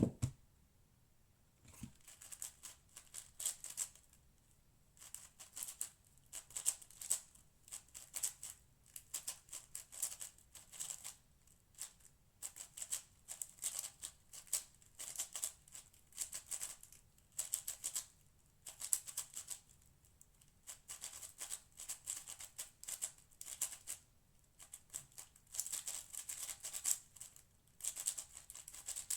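Cosmic Shadow M 6x6 speedcube being turned fast: bursts of loud plastic clicking and rattling as layers are spun, broken by short pauses, starting about two seconds in after a couple of light knocks.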